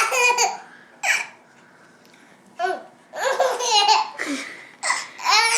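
A baby laughing in several bursts of high-pitched giggles, with short pauses between them.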